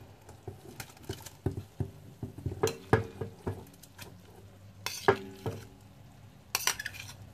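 A plate clinking and scraping against the rim of a stainless steel pot as tapioca pearls are tipped and pushed off it into boiling water. Scattered light knocks come in small clusters, about three and five seconds in and again near the end.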